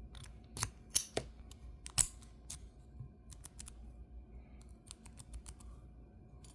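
Lock pick and tension wrench clicking and tapping against the metal of a four-pin Master Lock 140 padlock during picking. A few sharp clicks in the first two and a half seconds, then lighter scattered ticks.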